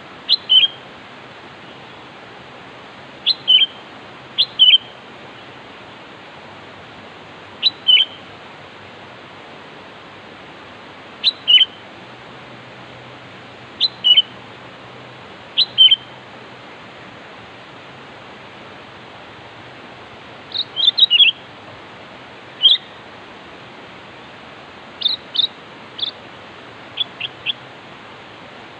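Sooty-headed bulbul (kutilang) calling in short, clear chirped phrases of two or three notes, repeated every few seconds, over a steady faint hiss. The calls come closer together about two-thirds of the way through. These are the calls used to lure rival birds.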